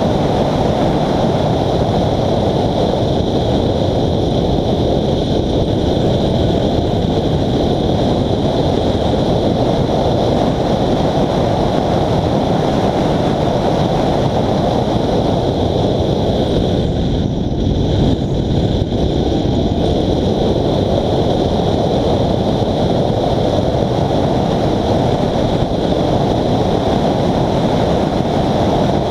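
Honda Civic FD2 Type R rally car at speed, heard as a steady rush of wind and road noise over the onboard camera's microphone. The hiss thins briefly about two-thirds of the way through.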